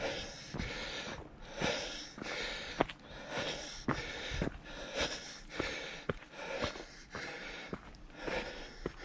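A hiker breathing hard, in and out about once a second, with occasional footsteps clicking and scuffing on the rocky trail.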